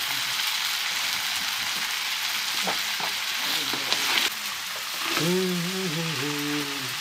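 Food sizzling as it fries in a pan, a steady hiss, with a brief louder clatter about four seconds in and a low voice for a moment about five seconds in.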